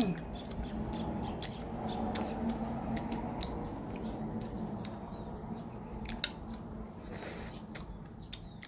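A person chewing food close to the microphone: soft wet mouth clicks and smacks at an irregular pace, with a short louder rustle about seven seconds in.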